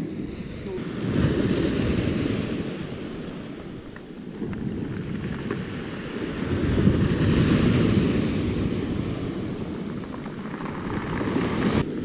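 Surf washing on the shore, swelling about a second in and again about seven seconds in, mixed with wind on the microphone.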